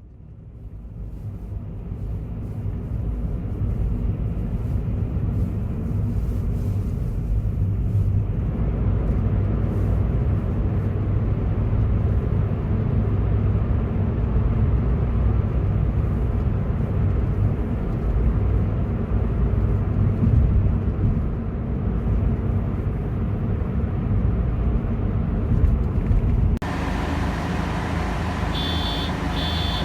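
Steady low rumble of a moving bus heard from inside, fading in at the start. Near the end the sound changes and a short high electronic beep repeats several times.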